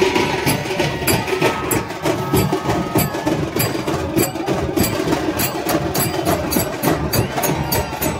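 Dhol-tasha festival drumming: a dense run of fast, sharp drum strokes with a busy, crowded din beneath. A thin held tone sounds over it for the first few seconds.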